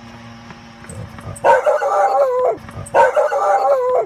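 Two long animal calls, each about a second long, the pitch dropping at the end of each.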